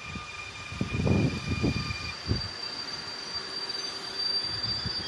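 Double-deck electric regional train rolling past, its wheels knocking over rail joints in groups of low thumps, with a thin high steady whine above them.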